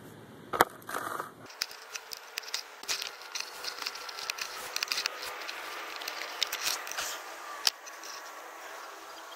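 Digging a plug in grassy turf: a blade cutting through grass roots and soil with irregular crunching, snapping and scraping clicks, the sharpest about half a second in and near the end.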